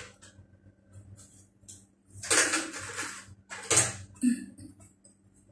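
Rustling noise in two bursts, the first about a second long and the second short, with a brief low sound near the end.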